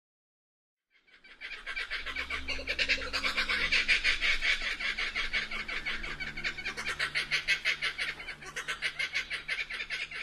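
Laughing kookaburra calling, a long, rapid cackling laugh that starts about a second in, swells, dips about six seconds in, then rises again and fades.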